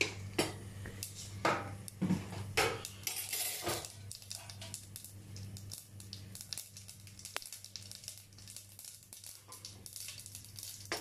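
Mustard seeds heating in hot coconut oil in an aluminium pot, crackling with many scattered sharp pops as they begin to splutter. There are a few louder knocks in the first seconds.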